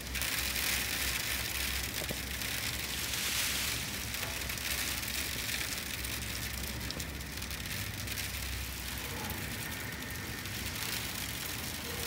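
Mixed rain, sleet and hail falling steadily: an even hiss with fine ticks of drops and pellets striking.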